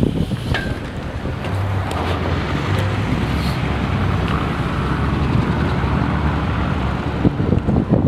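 Wind buffeting the microphone, over the steady low rumble of a pickup truck's engine as it drives slowly through deep snow. The wind gusts come harder near the end.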